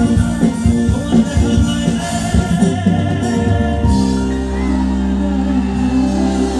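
Loud live band music with singing, drums beating quickly for the first four seconds, then a long held chord.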